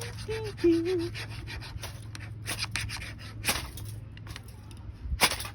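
Repeated short scraping and rubbing strokes from trying to light a campfire without a lighter, with two sharper, louder scrapes about three and a half and five seconds in; the fire has not caught yet.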